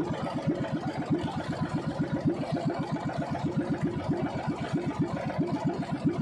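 Small outrigger fishing boat's engine running steadily under way, an even chugging of about seven beats a second.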